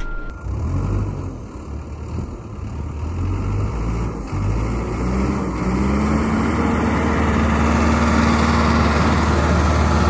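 Cat 420F backhoe loader's diesel engine running hard as the machine drives a wheelie run. The engine pitch rises about five seconds in, then holds steady and grows louder toward the end.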